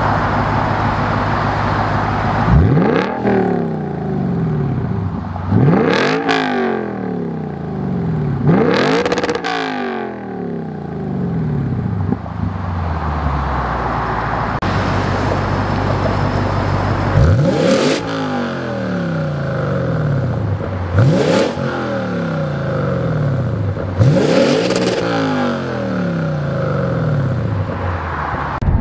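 Lexus RC F's 5.0-litre V8 idling through a Fi Exhaust valvetronic catback with quad tips, blipped six times in two sets of three. Each rev climbs quickly and falls straight back to idle.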